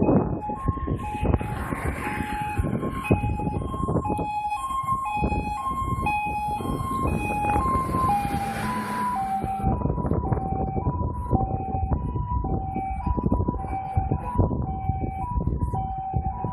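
Scania P360 fire engine's two-tone siren sounding on an emergency run, alternating between a high and a low note about twice a second. Its pitch drops slightly as the truck passes, about nine seconds in, while the truck's engine and tyre noise swells briefly.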